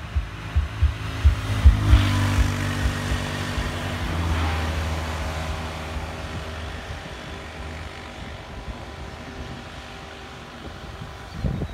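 A motor vehicle engine running steadily, fading slowly over several seconds, with wind buffeting the microphone in low thumps at the start.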